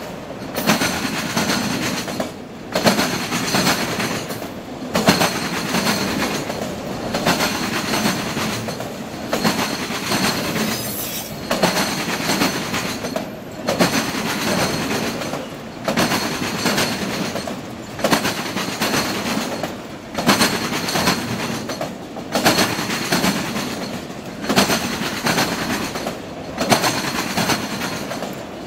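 Freight train autorack cars rolling over a double diamond rail crossing: steel wheels clattering and banging across the diamond frogs, coming in a loud burst as each car's trucks cross and easing briefly between cars, about every two seconds.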